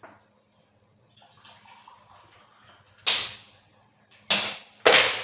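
Water poured from a cup into a bowl of flour and eggs, a faint pouring for a couple of seconds, then several loud short splashing or knocking sounds about a second apart from about three seconds in.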